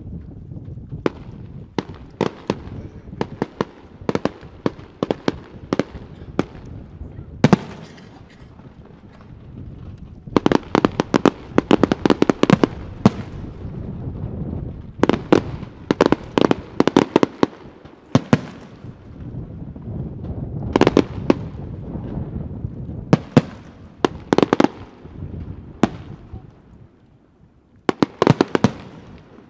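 Aerial fireworks display: sharp bangs of bursting shells, spaced out at first and then in dense rapid volleys several times, with a low rumble between them.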